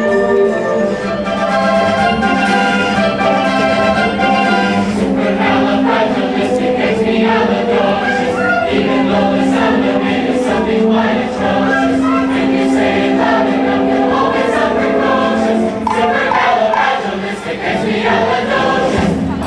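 A choir singing with instrumental accompaniment. It opens on a held chord, and from about five seconds in the parts start moving over a run of short, rhythmic strokes.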